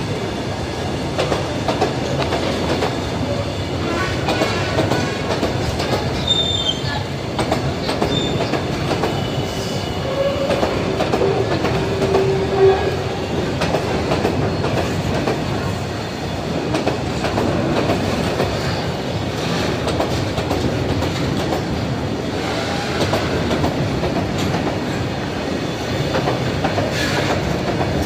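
Freight train of oil tank wagons rolling past close by, its steel wheels running steadily on the rails. A few brief high squeals come partway through.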